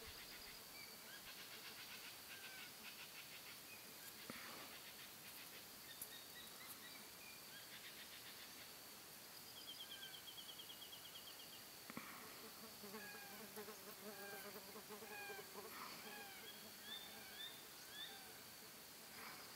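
Faint evening bush ambience: a steady high-pitched insect drone with scattered short chirps, whistles and trills from small birds, busiest in the second half.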